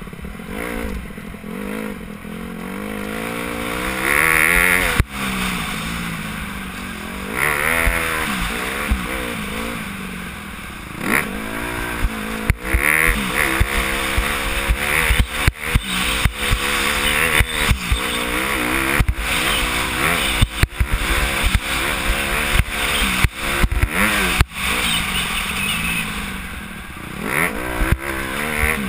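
Dirt bike engine heard from on board, revving up and falling off again and again as the rider accelerates and backs off around the motocross track, with many sharp knocks throughout.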